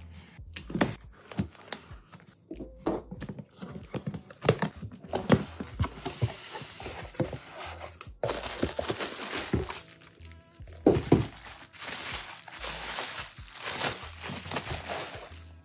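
Packing tape on a cardboard shipping box being slit with a small blade and the cardboard flaps handled, with scattered clicks and rustles. From about halfway on, plastic bubble wrap crinkles steadily as a boxed item is pulled out of it.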